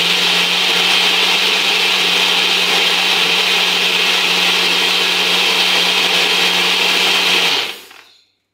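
Nutribullet personal blender running at full speed, blending pancake batter of oats, egg whites, banana and frozen berries. A loud, steady whirr with a low hum, which winds down and stops about seven and a half seconds in.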